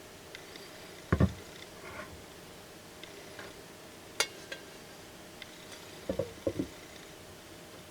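Cookware being handled: a pair of dull knocks about a second in, a sharp click a little past the middle, and a quick run of knocks near the end, over a faint steady hum.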